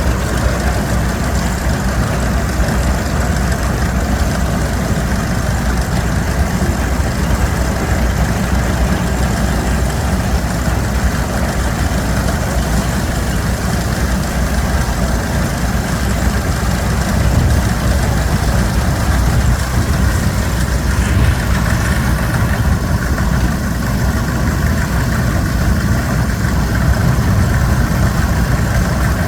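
Farm machinery engine running steadily, a continuous low rumble with no breaks.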